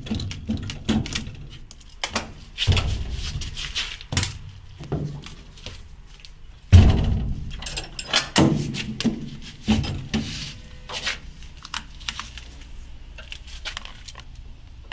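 Clinks and clanks of a steel ring spanner and battery terminal clamps as a lead-acid generator starter battery is swapped, with scattered knocks. A heavy thud about seven seconds in is the battery being set down in its tray.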